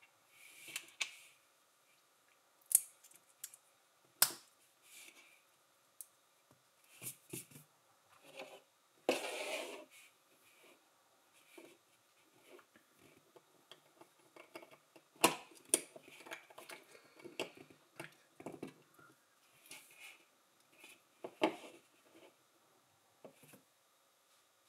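LEGO pieces being handled and snapped together: sharp plastic clicks and taps at irregular intervals, with a brief scraping rustle about nine seconds in.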